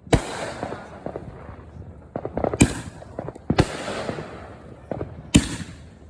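Fireworks going off: four loud, sharp bangs a second or two apart, with crackling and smaller pops between them.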